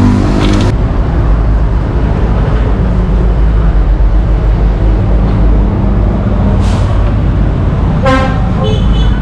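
Street traffic: a motor vehicle's engine running close by with a steady low rumble, and a short horn toot near the end.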